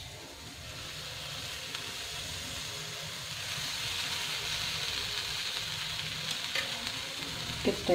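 Semolina (suji) and curd batter sizzling on a hot flat griddle (tawa), the sizzle growing louder over the first few seconds and then holding steady.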